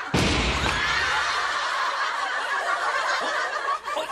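A long wooden board crashes down onto the stage set with one loud bang, followed by studio audience laughter.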